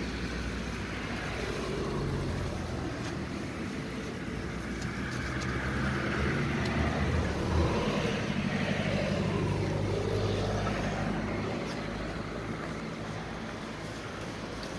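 A motor vehicle's engine running close by. It grows louder over the first few seconds, holds through the middle and fades toward the end.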